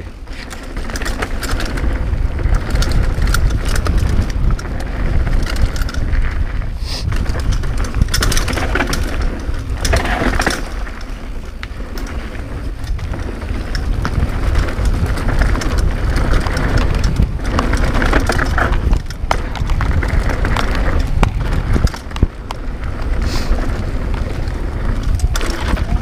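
Cannondale Claymore mountain bike descending a dirt downhill trail at speed, heard from a GoPro mounted on the bike: a steady low rumble of wind on the microphone, tyres running over dirt, and a rapid rattle and clatter of the bike over bumps.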